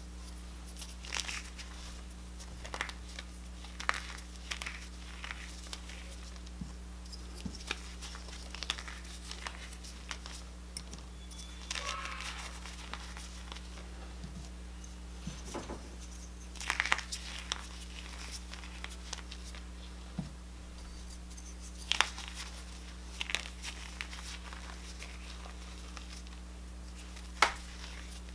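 Reformed gym chalk crushed and crumbled between fingertips: irregular crisp crunches and crumbling into loose powder, with one sharper snap near the end. A steady low hum runs underneath.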